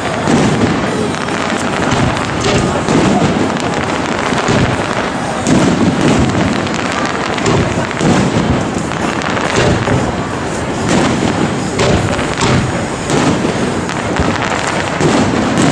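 Aerial fireworks display: many bangs and crackles of bursting shells in quick succession, with no pause.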